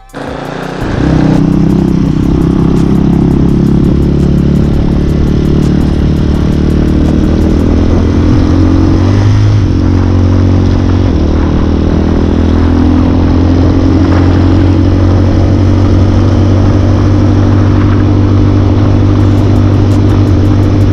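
Hawk 250 dual-sport motorcycle's single-cylinder four-stroke engine running steadily as the bike rides along, loud from about a second in, its pitch rising slightly around the middle.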